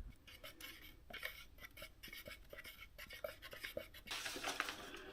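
Light scraping and clinking of two-part epoxy primer being mixed in a cup, followed by a short rush of noise about four seconds in.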